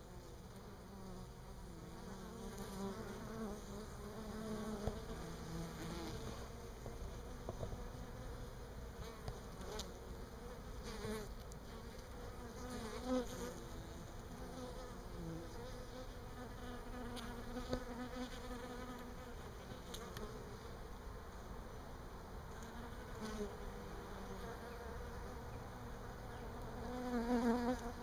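Honey bees buzzing in flight, their wingbeat hum wavering in pitch and swelling and fading as bees pass close. The hum is loudest near the end.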